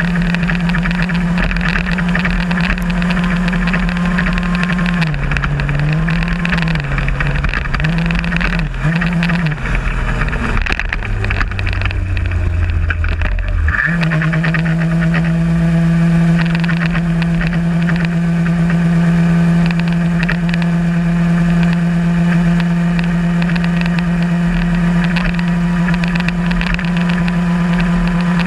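VéloSolex moped's small single-cylinder two-stroke engine running at steady high revs, heard from the handlebars. Its pitch dips and wavers several times in the first third and sits lower for a few seconds around the middle, then jumps back up and holds steady.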